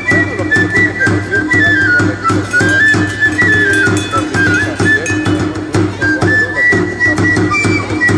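Traditional folk music played on a high flute and drum: the flute carries a stepping melody over a steady drumbeat.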